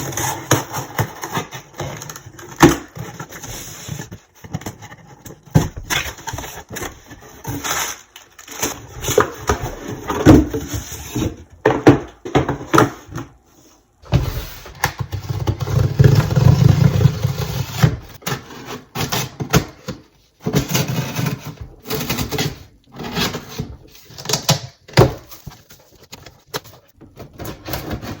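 Handling noise: irregular clicks, knocks and rubbing, with a steadier low hum for a few seconds around the middle.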